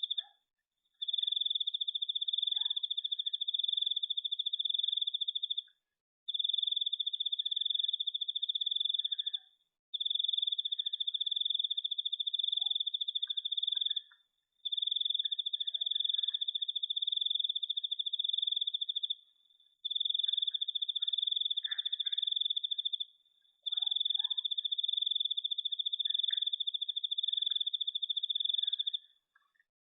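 A cricket trilling at one steady high pitch in about six long bouts of three to five seconds each, with short breaks between them. Faint scattered chirps sit underneath.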